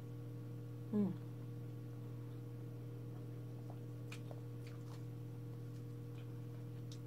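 Steady low electrical mains hum. About a second in there is a short falling vocal 'mm', and later a few faint clicks of eating with the hands and mouth.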